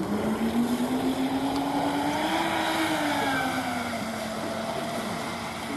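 Electric RC speedboat running at speed on 4S/6S LiPo power: a motor whine that climbs over the first couple of seconds, then slowly drops as the boat runs off, over the hiss of the hull's spray.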